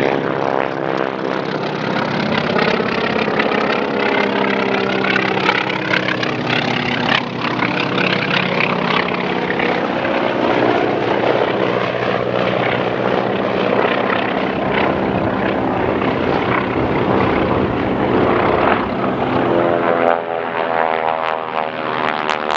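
Propeller-driven warbirds with radial engines flying past low at an airshow. The engine note runs steadily and bends up and down in pitch as the planes pass.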